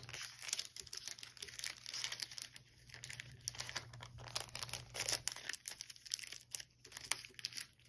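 A stack of paper journaling tags being handled and leafed through, with soft, irregular rustling and crinkling of paper and plastic packaging.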